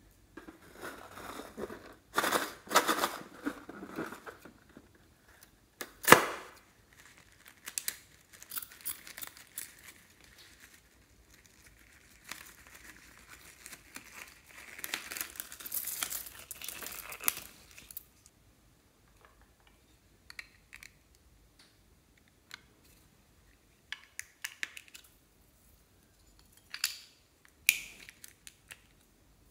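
Crinkling and rustling as a small glitter-filled balloon and fruit-shaped plastic cases are squeezed and emptied over a glass dish of clear slime. A single sharp snap about six seconds in is the loudest sound, and near the end come a few scattered clicks.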